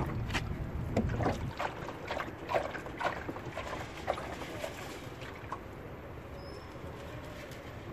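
Rainwater that has collected inside a Chevrolet Caprice door running and dripping out of its bottom edge onto the ground: a run of irregular splashes and drips that thins out after about five seconds. The door has filled with water.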